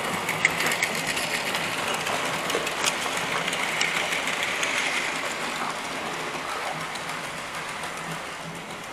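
Model railway train running past on the track: its small electric motor whirring steadily with a few clicks from the wheels on the rails, fading away from about five seconds in as the train moves off.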